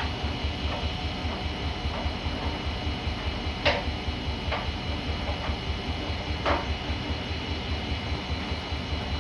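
Siemens iQ300 front-loading washing machine running, with a fast, even low rhythmic drone from the turning drum and a few sharp knocks inside it, the loudest about four seconds in and again near six and a half seconds.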